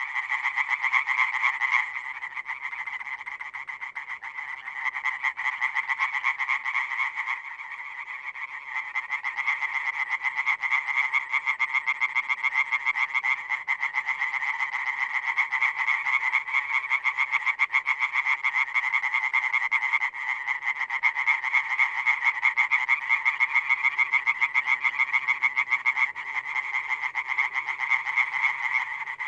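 European tree frogs (Hyla arborea) calling: a nearby male gives a fast, even train of short notes, loud and continuous, over a chorus of other tree frogs, the series faltering briefly a few times before picking up again.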